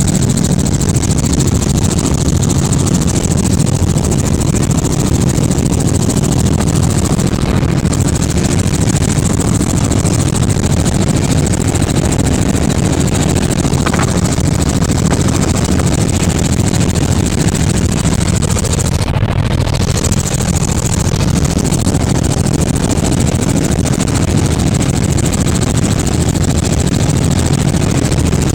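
Helicopter in flight, its rotor and engine making a loud, steady drone with a low, even throb, as heard by a passenger aboard.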